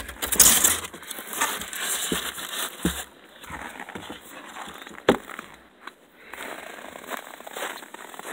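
Footsteps and handling noise in very cold, packed snow: irregular crunching and rustling, louder at first and fainter near the end, with a single sharp knock about five seconds in.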